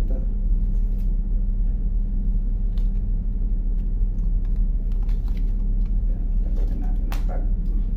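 Steady low drone of a ship's machinery, a hum of several low tones at an even level. Light rustling and a few soft clicks come from a paper price tag and cloth being handled close by.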